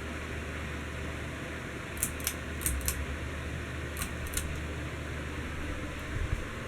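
Heritage Empire Deluxe ceiling fan running, a steady motor hum under a hiss of moving air. About seven light, sharp clicks or jingles come in two clusters, around two to three seconds in and again about four seconds in.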